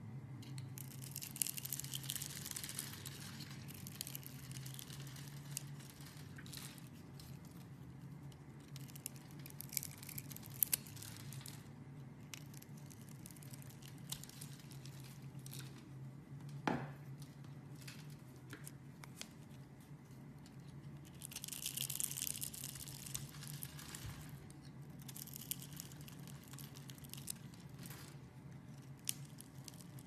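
A knife blade cutting and scraping through scored bars of soap, with the cut soap cubes crumbling off in crackly, rustling runs and scattered small clicks, one sharper click midway.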